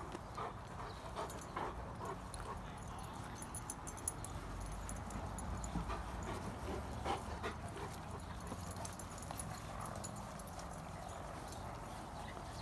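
Irish setter puppies and adult setters playing on grass: scattered soft scuffles and small taps from their paws and bodies, with a low steady rumble underneath.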